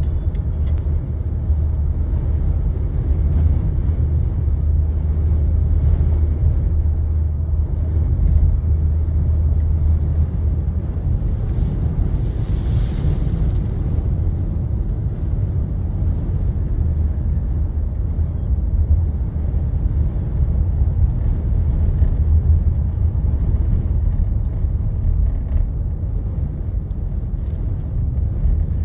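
Strong dust-storm wind, over 60 mph, buffeting the microphone: a steady low rumble, with a brief hissier gust near the middle.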